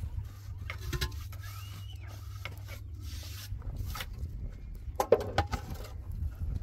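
Scraping and knocking on concrete blocks and mortar as a cinder-block wall is laid, with a sharp knock about five seconds in, over a steady low rumble.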